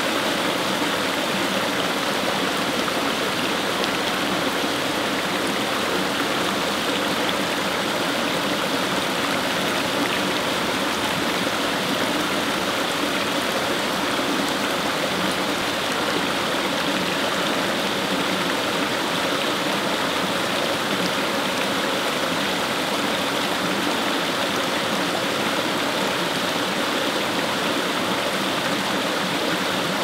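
Small rocky stream babbling over stones and splashing down a little cascade, a steady, even rush of water.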